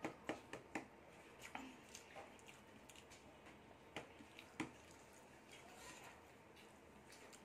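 Faint eating sounds: scattered short clicks and smacks of chewing and of fingers mixing rice on a plate, a few in the first second and two more around four to five seconds in.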